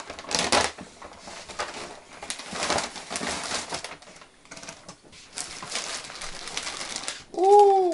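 Paper gift bag and plastic bag rustling and crinkling in irregular bursts as a present is unwrapped. Near the end comes a short, loud sound from a person's voice, rising and then falling in pitch.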